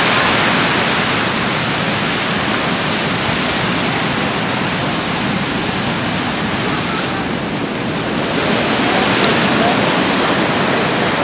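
Ocean surf breaking on a beach: a steady rush of wave noise. About two-thirds of the way in it dips briefly and loses some of its hiss, then carries on.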